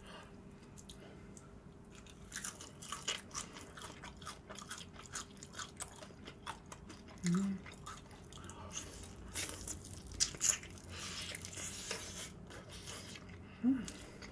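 Crispy maple butter garlic fried chicken being bitten and chewed close to the microphone: a long run of sharp crunches starting about two seconds in. A short hummed "mm" comes about halfway through and again near the end.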